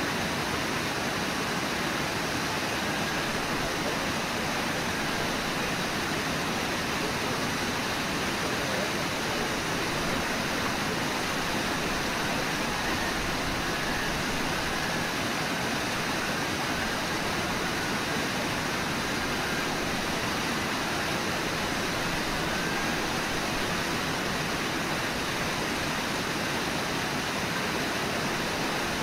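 Steady rush of a low waterfall and the whitewater rapids churning below it.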